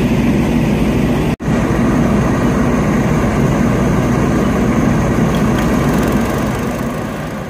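Fire apparatus engines running steadily in a loud, even drone. The sound drops out for an instant about a second and a half in and fades away near the end.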